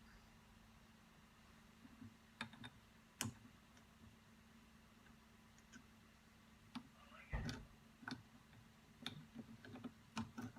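Scattered light clicks and short knocks of tools and parts of a rotary hammer being handled on a workbench. The sharpest click comes about three seconds in and a duller knock a little past seven seconds, with several more clicks near the end.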